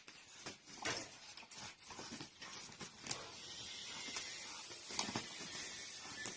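A fighting rooster being exercised, making irregular knocks, scuffs and rustling with no steady rhythm, a few sharper knocks standing out about a second in and about five seconds in.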